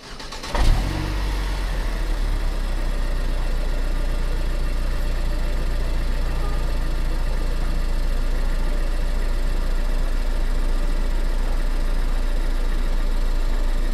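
A deep, steady rumbling drone that comes in with a sudden hit about half a second in and slowly grows louder.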